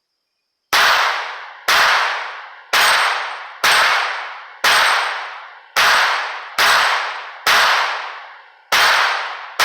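Smith & Wesson Victory .22 LR pistol fired ten times in a steady string, about one shot a second. Each shot is followed by a long ringing tail, the hits ringing the 6-inch steel target plates.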